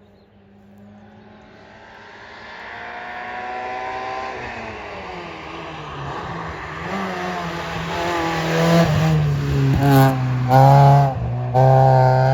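Historic rally car's engine approaching hard through the corners, growing steadily louder, the revs falling and climbing again through gear changes, with two brief lifts of the throttle near the end as it comes close and runs loudest.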